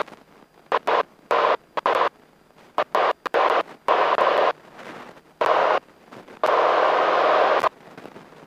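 Engine and cockpit noise of a Grumman single-engine light airplane climbing out after takeoff, heard through the headset intercom. The noise cuts in and out abruptly about a dozen times, in short blocks with the longest lasting over a second near the end, as the intercom's voice-activated squelch opens and closes.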